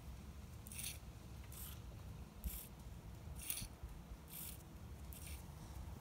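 Small gear motors of a solar-powered BEAM robot whirring in short spurts, six times, just under a second apart. Each spurt is the robot's bicore circuit and solar engine dumping stored charge into a motor to drive a wheel a little way.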